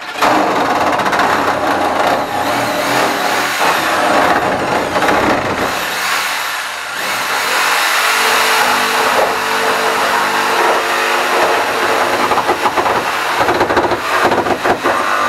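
Corded electric jigsaw running continuously, its blade sawing through a large panel.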